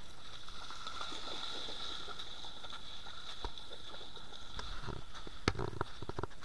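Shallow river water running and splashing as dogs wade, under a steady high-pitched hum. Footsteps on wet sand and gravel, with a few sharp knocks and thuds near the end.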